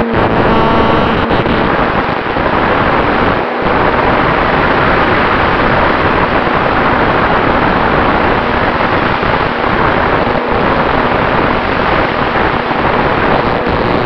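Steady loud rush of air over a radio-controlled model Cessna 188's onboard camera in flight, with the faint steady tone of the plane's motor and propeller underneath.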